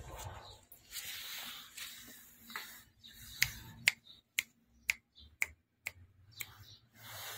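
Finger snaps, a run of about eight sharp snaps at roughly two a second starting about halfway in, made to call a puppy, after some soft rustling.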